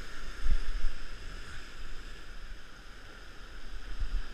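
Ocean surf washing and surging over rocks, with wind buffeting the microphone in low thumps, loudest about half a second and about a second in.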